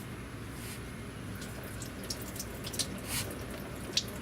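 Hot engine oil dripping from the oil filter into a drain pan: a few scattered drips in the second half of the clip, the sharpest about four seconds in, over a steady low hum.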